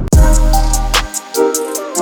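Music with a beat cuts in suddenly: a deep bass note for about a second, a drum hit, quick high cymbal-like ticks and held keyboard-like tones.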